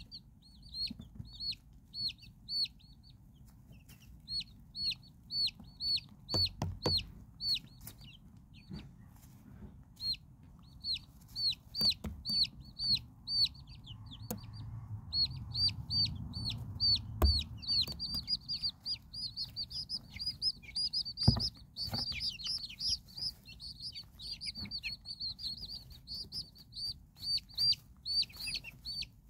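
Silkie chicks peeping: a steady run of short, high, falling peeps, two or three a second, with several chicks peeping at once through the second half. A few soft knocks and rustles in the shavings.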